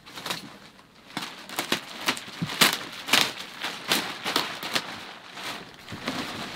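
Clear plastic wrapping crinkling and rustling in quick, irregular crackles as it is pulled off a vacuum-packed foam mattress.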